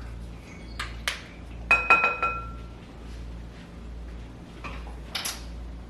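A metal measuring spoon clinking against a mixing bowl: a few quick knocks about two seconds in, one strike ringing briefly. Lighter clicks and knocks of kitchenware come before and after.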